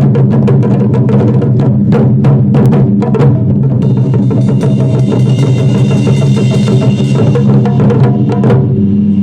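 Japanese taiko drums played in quick, continuous strikes with a deep, booming resonance. A ringing metallic shimmer joins from about four seconds in and fades near the end.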